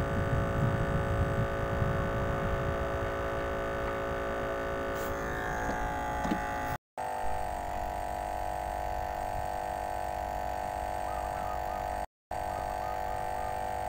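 A steady hum made of several held tones from an unseen machine. It is cut off by two short gaps of silence at edit cuts, and the hum changes after the first gap.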